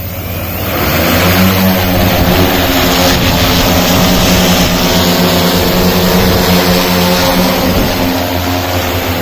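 Rotors of an EFT E616P agricultural spraying drone spinning up about a second in, then running with a steady loud hum, as the armed drone lifts off on its waypoint route.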